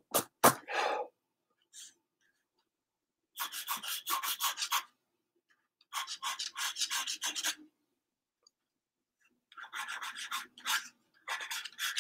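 Pencil scratching on sketchbook paper: runs of quick back-and-forth strokes, several a second, broken by short pauses, as shading is laid into a portrait. A couple of sharp taps at the very start.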